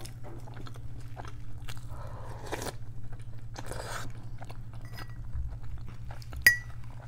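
Close-miked eating: wet chewing and small mouth clicks, with a slurp of beetroot borscht from a spoon about four seconds in. Near the end there is a single sharp clink of a metal spoon on a ceramic soup bowl.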